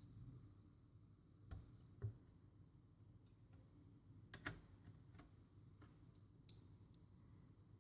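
Faint, irregular clicks and light knocks a second or so apart, the loudest about two seconds in and about four and a half seconds in, from small metal and plastic laptop parts and tools being handled.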